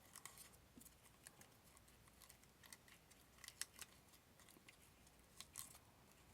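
Faint crackles and small clicks of masking tape being handled and pressed onto a pistol's metal frame, a few at a time, in otherwise near silence.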